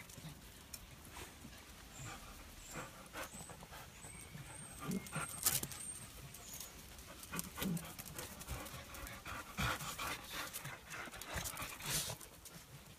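Shih Tzu puppies moving about close by on stone paving, with scattered short scuffs and clicks throughout.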